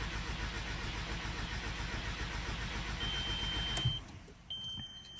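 Starter cranking the 2001 Jetta's 1.8T turbo four-cylinder engine steadily for about four seconds without it catching, then stopping: the car cranks but won't start, a fault later traced to a failed coolant temperature sensor. A high, steady electronic beep sounds just before the cranking stops and again near the end.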